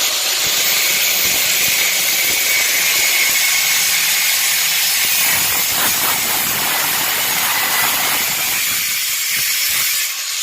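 An 850 W, 100 mm angle grinder cutting through square stainless steel pipe: a loud, steady abrasive hiss of the wheel biting the metal. The lower part of the sound falls away in the last couple of seconds.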